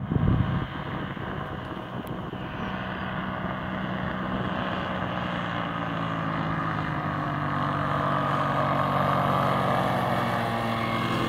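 Aerolite 103 ultralight's engine and propeller running steadily as the plane flies in to land, growing louder as it comes closer.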